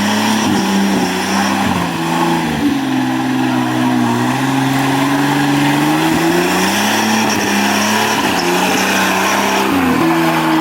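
Off-road 4x4 competition vehicle's engine under hard throttle. Its pitch drops sharply about two and a half seconds in, climbs slowly for several seconds, then drops again near the end.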